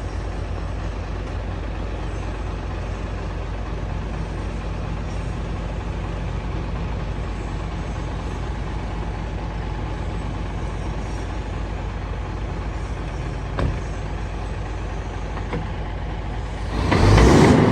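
Heavy dump truck's diesel engine running steadily at low pitch, with a brief loud rush of noise near the end.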